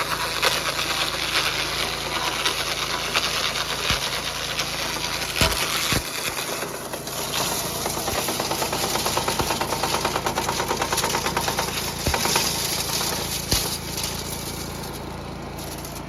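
Kyoritsu Echo HK-510S 5-horsepower engine shredder-chipper running steadily, with a few sharp knocks, the loudest about five and a half seconds in, and a fast rattle from about six to twelve seconds in. It gets a little quieter near the end.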